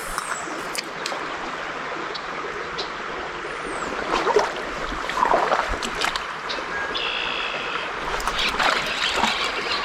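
Shallow trout stream running over riffles: a steady rush of water, with a few scattered small clicks.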